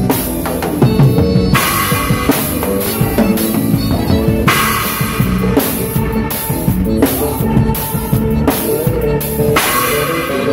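Live band music driven by an acoustic drum kit playing a steady beat, with three cymbal crashes that ring on for a second or more, over held keyboard chords.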